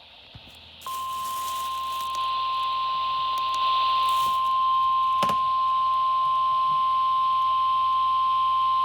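NOAA Weather Radio warning alarm tone: a single steady high tone of about 1050 Hz switching on about a second in over radio hiss, signalling that a warning broadcast is about to follow. A sharp click cuts through about halfway.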